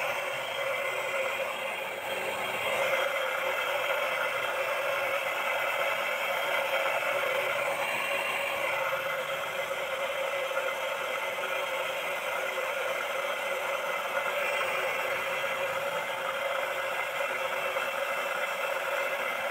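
Blade sharpening machine running: its electric motor drives an abrasive grinding wheel along the edge of a long plastic-granulator blade, throwing sparks. The grinding noise is steady throughout, with one steady tone running through it.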